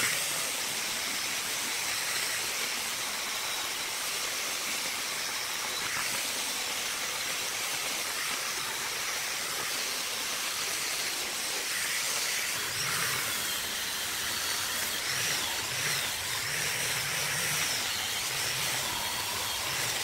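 Corded angle grinder with a red abrasive wheel running steadily against a rusty metal handwheel, stripping off rust: a continuous hissing grind.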